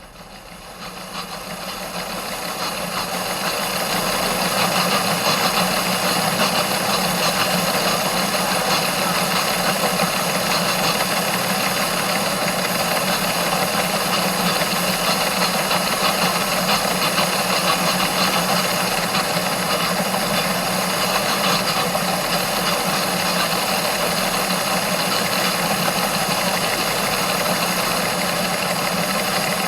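An engine or machine running steadily with a rattly, vibrating hum, fading in over the first few seconds and then holding level.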